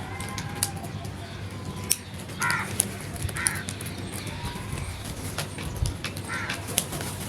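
Crows cawing: three short harsh caws spread across a few seconds, over scattered sharp ticks and a steady low hum.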